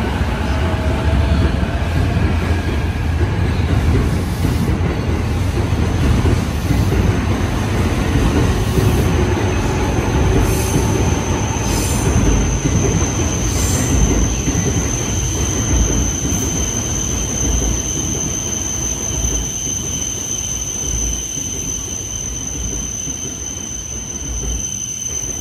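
JR East E531 series AC/DC electric multiple unit pulling out along the platform: a steady heavy rumble of wheels on rail as the cars go past, with a faint motor whine rising at the start. A thin high-pitched tone comes in about halfway, and the sound eases off as the last car passes near the end.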